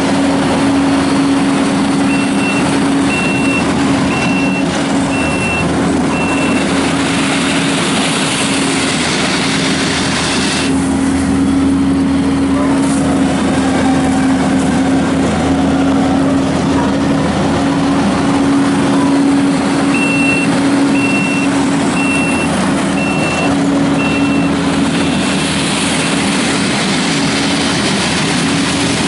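Kubota SVL75-2 compact track loader's diesel engine running steadily. Its reversing alarm beeps in two runs of about five beeps each, one a couple of seconds in and one about two-thirds of the way through.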